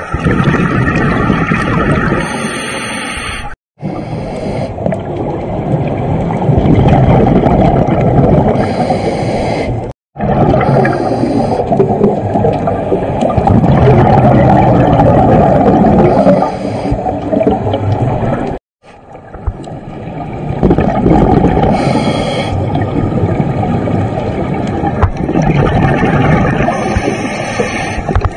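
Muffled underwater noise picked up through a camera housing: scuba regulator breathing and bursts of exhaled bubbles, swelling and fading every few seconds. It cuts off abruptly three times.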